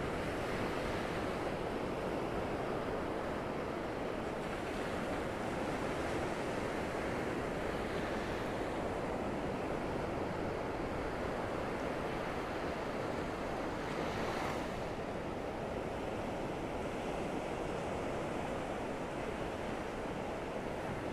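Gentle Gulf surf washing steadily onto the beach, with some wind on the microphone.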